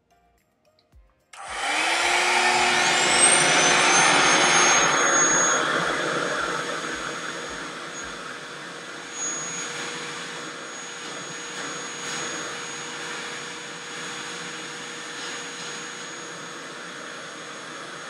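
REVAIR reverse hair dryer switching on: its suction motor starts abruptly with a rising whine as it spins up, then runs as a steady rush of air drawn in through the hose and wand. It is loudest for the first few seconds, then settles somewhat quieter.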